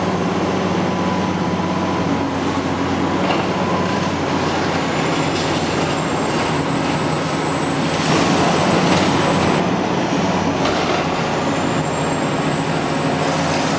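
Hitachi Zaxis 500 high-reach demolition excavator's diesel engine running steadily under load, with a thin high whine that comes and goes. Its jaw attachment crunches and scrapes through concrete rubble with occasional knocks.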